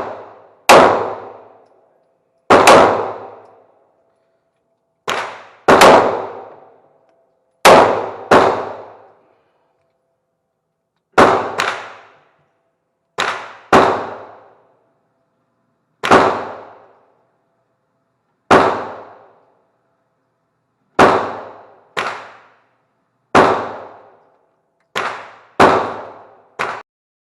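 Gunshots at a shooting range, fired singly and often in quick pairs, about seventeen in all at irregular intervals, each sharp report dying away within about a second.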